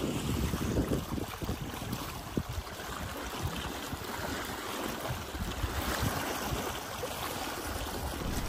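Wind rushing over the microphone in uneven gusts.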